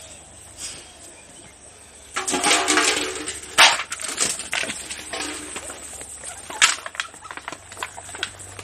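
Dry kibble rattling onto stainless steel feeding dishes, with sharp clinks of the metal dishes and a scatter of smaller clicks as puppies eat. The loudest clatter comes about two seconds in, followed by a sharp clank.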